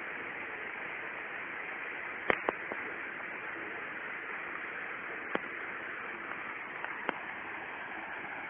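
Steady rush of water falling over a small forest cascade, with a few sharp clicks or knocks, the loudest about two seconds in.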